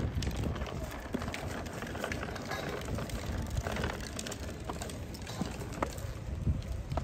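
Scattered footsteps and light clicks of several people walking on a paved path, over a steady outdoor background noise.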